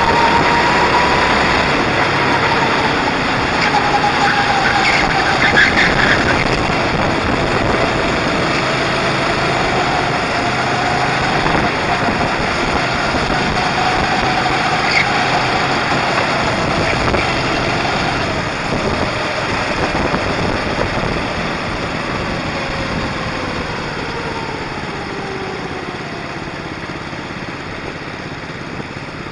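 Go-kart engine heard from on board, its pitch rising and falling as the kart speeds up and slows through the corners. Over the last several seconds the pitch drops and the sound gets quieter as the kart eases off.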